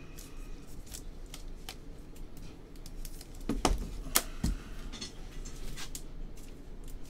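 Trading cards being handled in gloved hands: a run of light clicks and card-edge rustles, with a few louder knocks about three and a half to four and a half seconds in.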